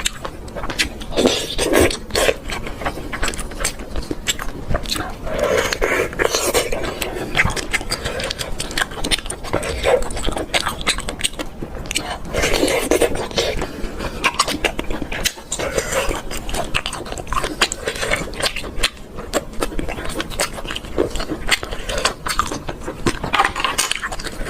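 Close-miked eating of cooked cat's-eye snails and other shellfish: chewing and slurping, with many small clicks and scrapes of shells being handled and picked at.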